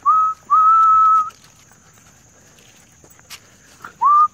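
A person whistling to call dogs: short whistles held on one pitch, each starting with a quick upward slide. Two come in the first second and a half, then a pause, and another begins near the end.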